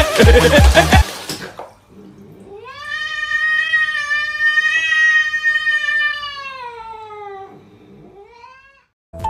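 A cat yowling: one long drawn-out cry of about five seconds whose pitch rises, holds and then falls, followed near the end by a shorter rising cry. Background music plays during the first second.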